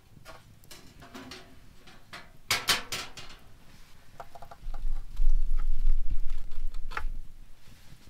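A metal baking tray of baked potatoes being carried to a table and set down: scattered clicks and knocks, a brief clatter about two and a half seconds in, then a low rumble for a couple of seconds as the tray lands and settles on the tabletop, ending with a click.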